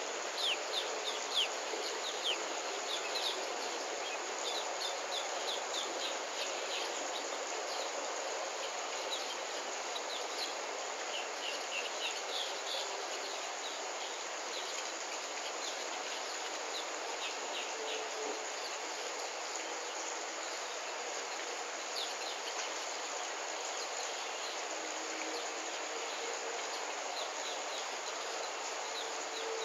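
Outdoor ambience: a steady hiss of insects, with quick high chirps from small birds, thickest in the first several seconds and returning now and then.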